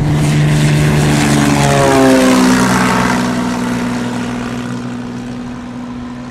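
Cessna 206 single-engine plane at takeoff power passing close and climbing away; its six-cylinder piston engine and propeller drone. The pitch drops about two seconds in as it goes past, then the sound fades as the plane recedes.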